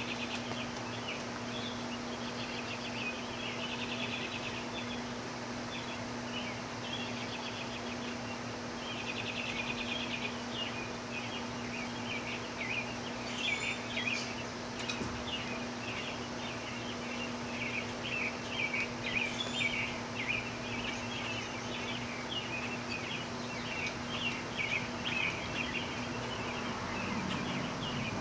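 Small birds chirping and trilling outside, rapid trills in the first few seconds and then scattered chirps, over a steady low electrical hum.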